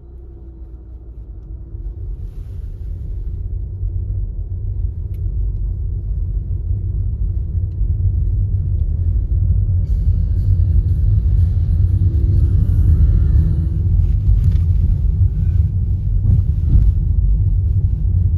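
Low steady rumble of a car driving, heard from inside the cabin: tyre and engine noise that grows louder over the first several seconds. A light hiss joins about halfway through, with a few faint knocks near the end.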